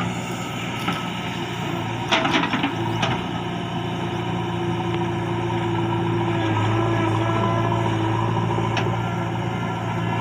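JCB 3DX backhoe loader's diesel engine running steadily under working load as the backhoe digs, its note growing stronger past the middle as the bucket bites into the soil. A few sharp knocks about two seconds in.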